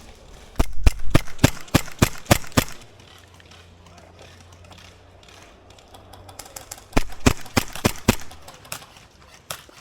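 Airsoft gun firing two quick strings of single shots, about three to four a second: about eight shots, a pause of several seconds, then about five more.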